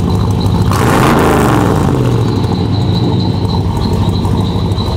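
Chevy 5.7 V8 with an aftermarket cam running through a Corsa Bullet muffler: it idles with a low rumble, is revved once about a second in, and drops back to idle.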